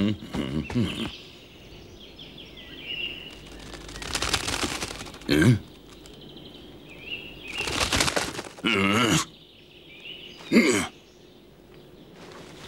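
A run of short cartoon sound effects, several sliding down in pitch, with faint high chirps between them.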